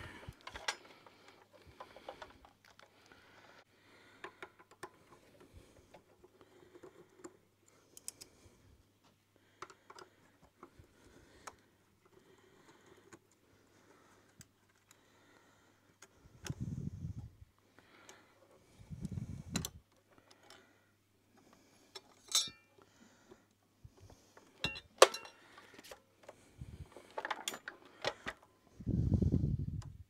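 Scattered small clicks, taps and light metallic jingles of a screwdriver, screws and plastic parts being handled while an electric iron's handle and terminal cover are unscrewed, with a few dull thumps, the last near the end.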